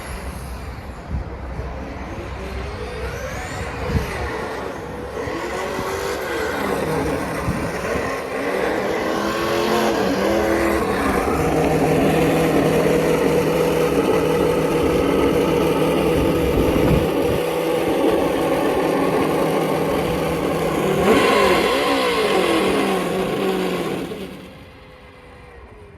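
Traxxas Slash RC short-course truck's On-Board Audio speaker playing simulated engine sound, revving up and down with the throttle, then held high and steady. The sound dies away near the end as the truck stops.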